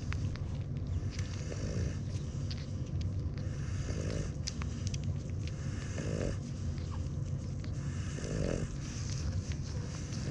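A French Bulldog mother snores in her sleep, breathing in a slow rhythm about every two seconds. Small, quick wet clicks of newborn puppies suckling run over it.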